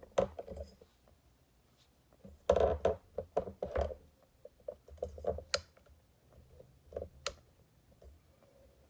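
Handling noise from objects being moved by hand. There is a loud burst of rustling and scraping with knocks about two and a half seconds in, then scattered soft taps and two sharp clicks.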